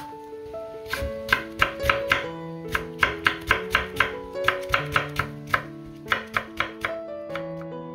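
Chef's knife julienning apple on a wooden cutting board: quick, sharp knocks of the blade through the fruit onto the board, about three or four a second, starting about a second in and stopping shortly before the end.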